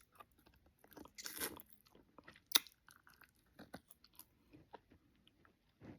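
A person chewing and smacking their lips while eating oxtails, soft wet mouth sounds and scattered clicks, the loudest a sharp click about two and a half seconds in.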